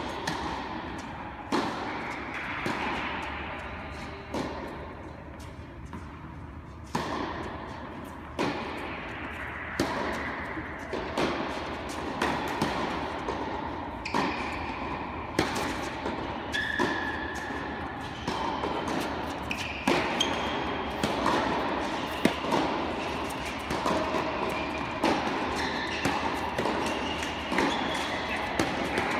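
Tennis balls struck by rackets and bouncing on an indoor hard court: a long series of sharp knocks at uneven spacing, each with a short echo off the hall. Faint voices sit under them.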